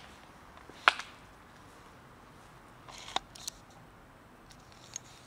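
A few sharp clicks over a quiet background: a loud one about a second in, a short crackling cluster around three seconds in, and a faint one near the end.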